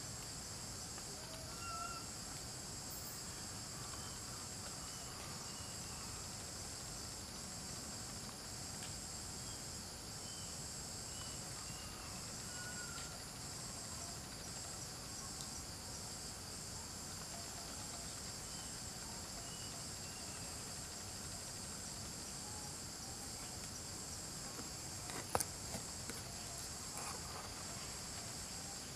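Steady high-pitched chorus of insects, with faint short chirps scattered through it and one sharp click near the end.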